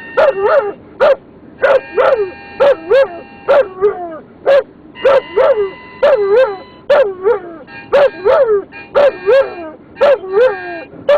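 German Shepherd singing along to a harmonica: a steady run of short yips, each rising then falling in pitch, about two a second. Beneath them, held harmonica chords come and go in stretches.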